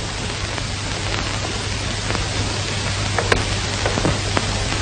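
Steady hiss and low hum from a worn old film soundtrack, with a few faint scattered clicks of crackle.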